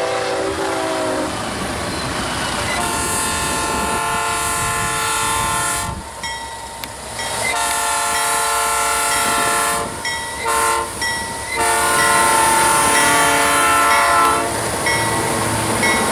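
GM G26CU diesel locomotive horn sounding several long multi-note blasts, broken by a couple of short ones near the middle, as the freight train approaches. The locomotives' engine rumble and wheel noise grow louder as the lead units pass close by near the end.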